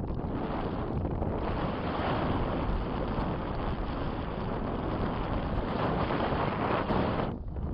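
Strong wind buffeting the microphone: a steady, rushing noise, broken by a brief drop shortly before the end.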